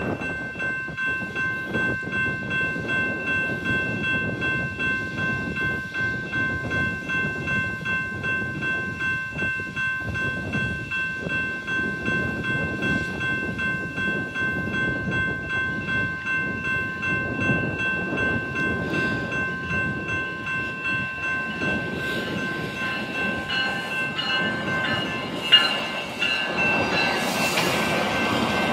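Railroad grade-crossing warning bell ringing at a steady, even pace, about one and a half strokes a second. In the last few seconds a Metrolink commuter train rolls past, its rumble growing louder, with one sharp knock just before it reaches the camera.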